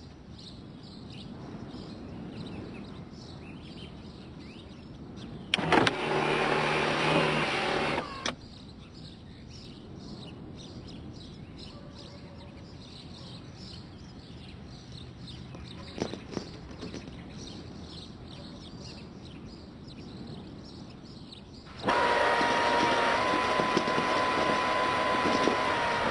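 A car's electric sunroof motor whirring twice over a steady outdoor background: once for about two and a half seconds, starting with a click, and again for about four seconds near the end. A single sharp click comes about two thirds of the way through.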